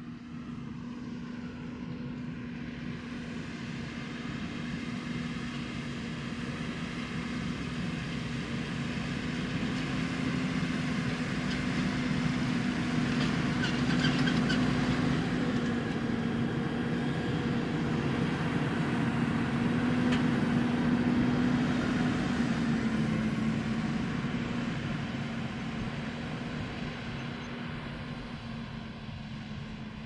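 Fendt 828 Vario tractor's six-cylinder diesel engine working under load as it pulls a Horsch Terrano 5 FX cultivator through stubble. It is a steady drone that grows louder as the tractor comes closer, peaks around the middle, and fades as it moves away.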